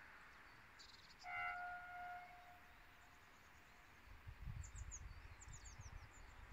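The horn of a DB class 218 diesel locomotive sounds once, a single steady tone of about a second. Faint high bird chirps follow, and a low uneven rumble builds in the last couple of seconds.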